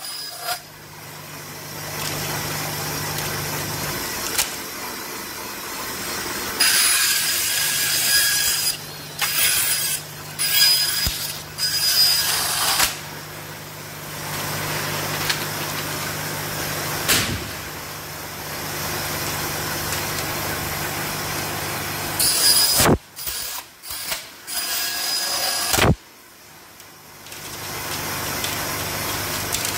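Industrial vertical band saw running with a steady low hum while ABS plastic strips are pushed through the blade; the cutting comes as stretches of loud hissing noise, with a few sharp knocks in between.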